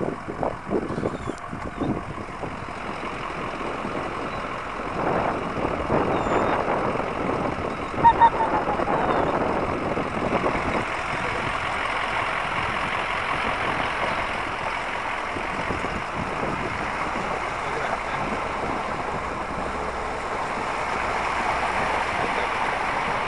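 Floodwater carrying broken-up hail ice, a steady rushing hiss, with one brief louder sound about eight seconds in.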